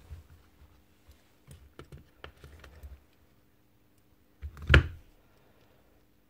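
Light clicks and taps of the drill's greased gear-and-piston assembly and plastic housing being handled and fitted together, with one louder knock about four and a half seconds in.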